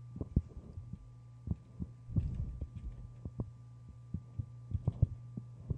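Computer keyboard keys being typed: about a dozen short, irregular low taps over a steady low electrical hum.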